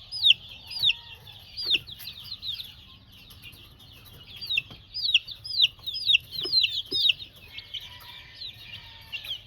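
A group of month-old Aseel chicks peeping: many short, high peeps, each falling in pitch, overlapping in busy clusters with brief lulls between.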